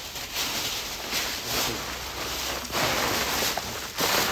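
A large plastic rubbish bag rustling and crinkling in a series of uneven surges as it is handled and carried close by.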